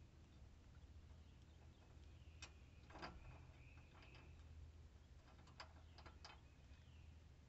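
Faint scattered metal clicks and clinks, about half a dozen, the loudest about three seconds in, as a mower blade and its bolt are handled and fitted onto the blade spindle's star pattern.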